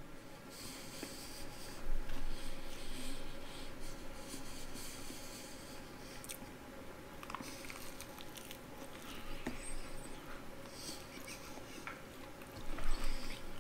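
A man chewing and biting into fried chicken close to the microphone, with louder bites about two seconds in and near the end.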